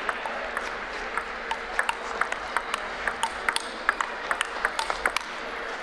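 Table tennis ball clicking against rackets and table in a fast rally, about three hits a second, over steady arena background noise.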